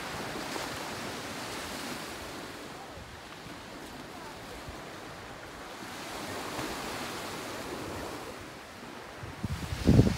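Small sea waves washing steadily onto a pebble beach. Near the end, a loud low rumble from wind buffeting the microphone.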